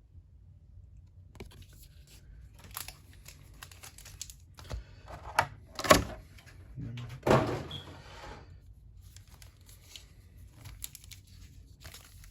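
Hands handling a card collection box and its packaging: cardboard and plastic rustling and tearing, with a couple of louder knocks about six and seven seconds in.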